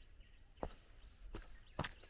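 Footsteps, three steps at walking pace, with faint bird chirps in the background.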